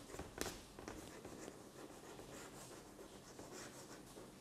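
Chalk writing on a chalkboard: faint, short scratching strokes, with a sharper click about half a second in.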